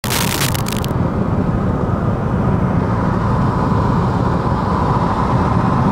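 Steady road and engine noise of a moving car heard inside the cabin, with a brief hiss in the first second.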